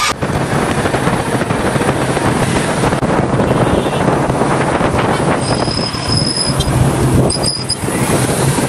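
Motorcycle riding in city traffic: a steady rush of engine, road and wind noise on the microphone. A thin high beep comes in about halfway through and again briefly near the end.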